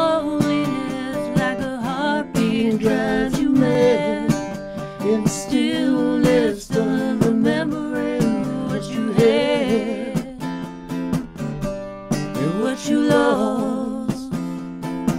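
A woman singing with a wavering, vibrato-laden voice over a strummed acoustic guitar, a live acoustic duo performance.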